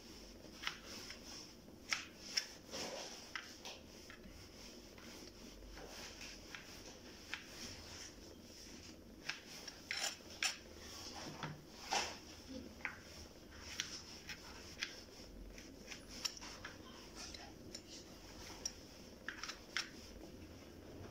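Knife slicing camel-hump fat into thin pieces: irregular light taps and clicks of the blade on the cutting surface.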